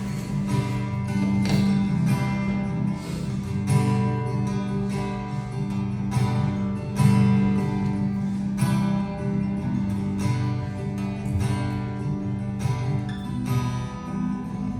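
Acoustic guitar strumming chords in a steady rhythm over sustained low notes, an instrumental passage of a worship song.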